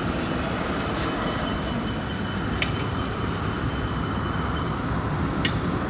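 Steady rumble with a faint high whine, from distant jet airliner engines idling, with two faint clicks a few seconds apart.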